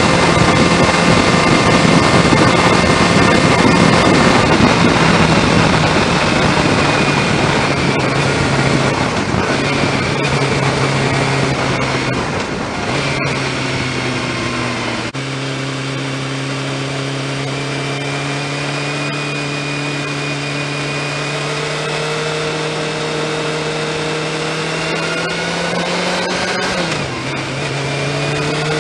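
Honda CBR600 F2 inline-four engine running at road speed with wind rush. The engine note sags gradually, changes abruptly about fifteen seconds in, then slowly climbs, with a short dip and recovery near the end. The wind rush eases after about twelve seconds.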